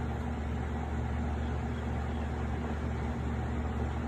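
Steady low machine hum with a constant hiss and no distinct events.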